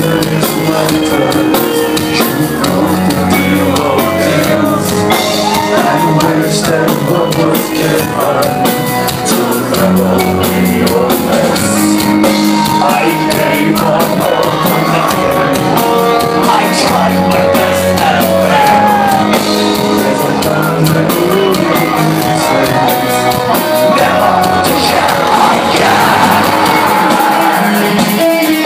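Melodic death metal band playing live and loud, with distorted electric guitars, drums and a singer's vocals, heard from within the audience.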